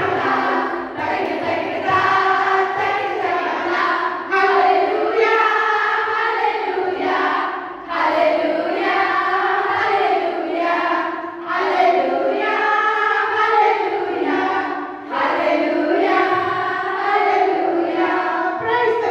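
A group of young women singing together in unison, led by a woman singing into a microphone. The song moves in phrases of about three to four seconds, with short breaks between them.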